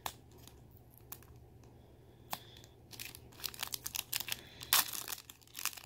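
Foil trading-card pack wrapper crinkling as it is handled and peeled open by hand. A few faint crackles at first, then a quick run of sharp crinkles from about three seconds in, loudest near five seconds.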